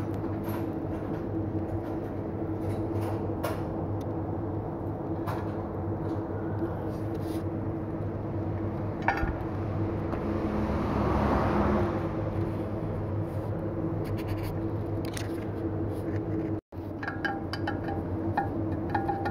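Wheel balancer spinning an alloy wheel: a steady machine hum, with a whooshing swell that builds and fades about midway. Near the end, after a cut, light metal clinks of a hand tool at the wheel rim.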